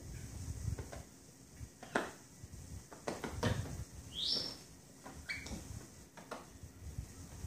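Small rugs being shaken, flapped and dragged on a wooden dresser top: irregular soft thumps and rustles with a few sharper knocks. About four seconds in comes a short rising high chirp, then a brief high squeak a second later.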